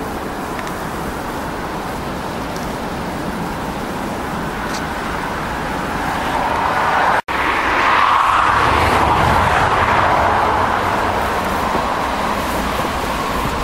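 A steady rush of roadside noise, with a vehicle passing on the road about halfway through: its tyre noise swells, then fades over a few seconds. The sound drops out for an instant just as the swell builds.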